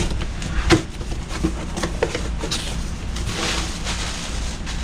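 Handling clatter: a string of sharp knocks and clicks in the first half, then a brief hiss about three and a half seconds in, over a steady low rumble.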